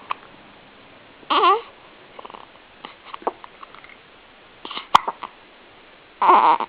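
Hiccups after a feed: short, sharp hiccup sounds, the sharpest about five seconds in. Two brief squeaky vocal sounds with wavering pitch come between them, the louder one near the end.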